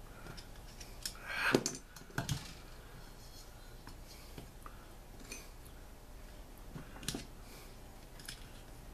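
Small metal clicks and scrapes of a piston with its rings being worked into a chainsaw cylinder by hand with a pick, the rings stiff and hard to push in. The loudest is a short scrape about a second and a half in, followed by another just after two seconds and a few faint ticks later.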